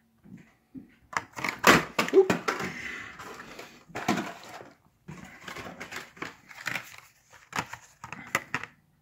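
Hot Wheels cars in blister-pack cards being rummaged through in a plastic storage tote: plastic blisters and card backs clattering and crinkling in irregular clicks and rustles.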